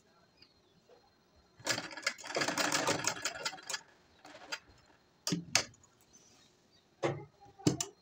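Domestic straight-stitch sewing machine stitching in short spurts: a run of rapid needle clicks lasting about two seconds, then a brief burst and a few single stitches near the end. The seam is being sewn slowly, a little at a time.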